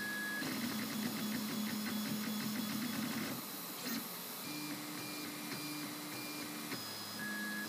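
MendelMax 2 3D printer's stepper motors whining as the print head moves through the layers of a small ABS cube. The tone holds steady, then steps up in pitch about halfway through, with rapid ticking in the first few seconds.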